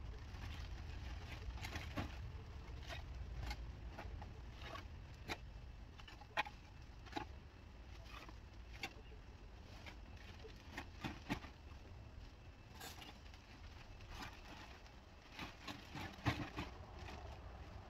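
Old roofing debris being gathered by hand and dropped into a plastic trash bag: irregular clatter and crackle of broken roofing pieces and rustling bag plastic, with a few sharper knocks.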